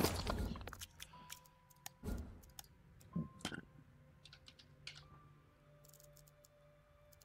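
Computer keyboard typing and mouse clicks, scattered sharp taps that thin out after about five seconds, over faint game-menu music.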